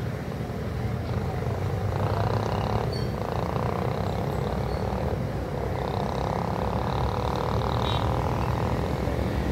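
Steady low rumble of distant road traffic, motorcycle and truck engines running on the road.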